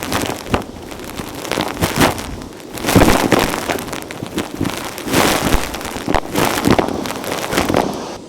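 Vacuum cleaner sucking up gritty dirt, with dense crackling and crunching as debris is pulled in. It comes in surges, loudest about three seconds and five to six seconds in.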